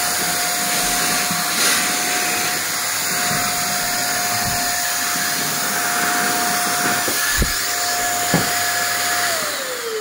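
Corded handheld vacuum cleaner running with a steady motor whine and rush of air, with a couple of knocks a few seconds before the end. Near the end the motor winds down, its pitch falling as it slows.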